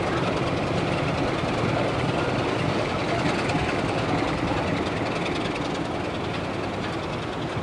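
Train rolling slowly toward the station: a steady rumble of wheels on the rails and locomotive, fading slightly near the end.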